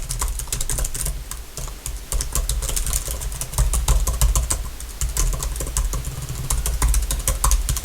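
Fast typing on a computer keyboard: a rapid, dense run of key clicks, close up, with the low thud of keys bottoming out underneath.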